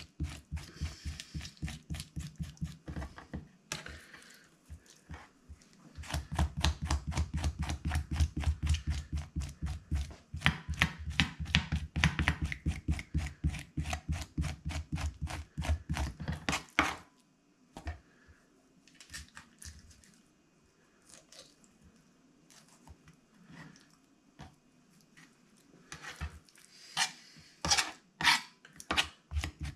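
Kitchen knife scraping the inside out of a squid tube on a wooden chopping board: quick repeated strokes, several a second. The strokes stop for several seconds and start again near the end.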